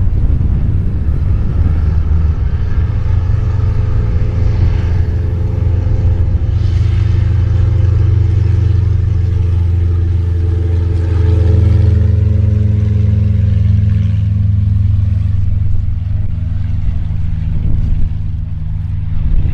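Piaggio P.149D's six-cylinder Lycoming piston engine and propeller running at take-off power on the ground roll: a steady, loud drone whose pitch creeps up as the plane accelerates. The higher engine tones fade about fifteen seconds in as it moves away.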